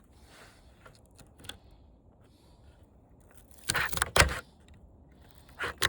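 Small metal parts and tools being handled: a quick cluster of clinks and knocks about four seconds in, and one more knock near the end.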